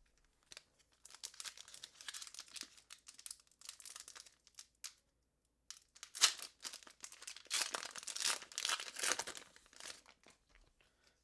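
A foil Pokémon booster pack wrapper being torn open and crinkled in the hands, in irregular rustling stretches with a short pause about five seconds in.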